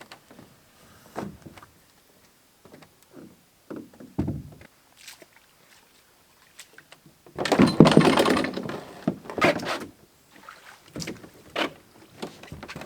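Canoe and camping gear being handled: scattered knocks and clunks, with a louder scraping rush lasting about two seconds past the middle.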